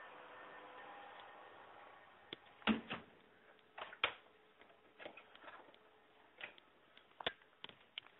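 Irregular sharp knocks and clicks from handling the camera, starting about two seconds in. The loudest come about two and a half and four seconds in.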